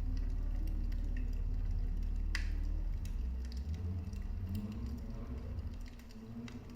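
Wood fire burning in a fireplace: a low rumble with scattered small crackles and pops, one sharper pop about two and a half seconds in. The rumble eases off about halfway through.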